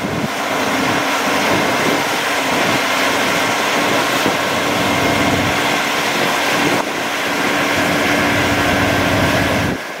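Combine harvester running steadily while harvesting wheat: an even, loud mechanical din with a few faint steady whining tones.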